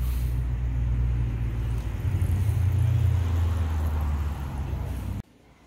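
A car driving past at low speed, heard as a low rumble of engine and tyres that swells about two seconds in and then eases off. The sound cuts off abruptly near the end.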